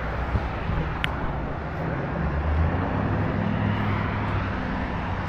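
Steady low rumble of motor vehicle traffic, with one short click about a second in.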